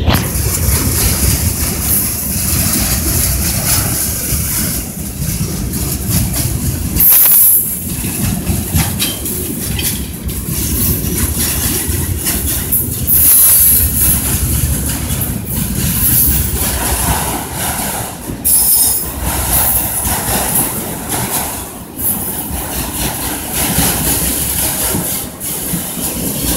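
Freight train cars rolling past: a steady rumble and clatter of steel wheels on the rails, with brief high-pitched wheel squeals now and then.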